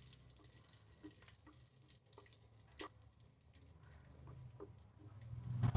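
Black cumin, urad dal and curry leaves sizzling faintly in a little hot oil, with scattered small pops and crackles as a wooden spatula stirs them; the sound grows louder near the end.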